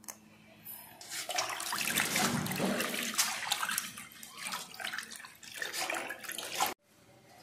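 Hands swishing and rubbing leafy greens in water in a metal basin: irregular splashing and sloshing that starts about a second in and stops abruptly near the end.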